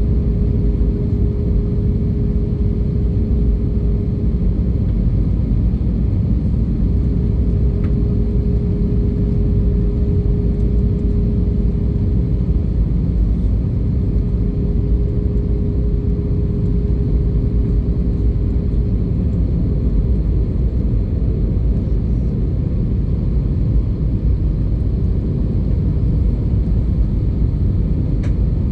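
Airbus A320 cabin noise in flight: the steady low roar of the engines and airflow, heard from a window seat beside the wing. A thin droning tone rides on it and fades out about two-thirds of the way through.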